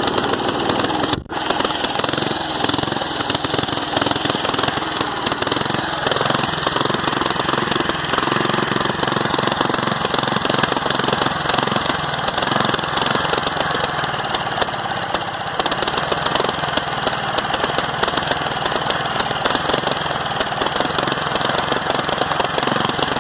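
Craftsman LT10 riding mower's engine running steadily, with one brief break about a second in. It keeps running and will not shut off.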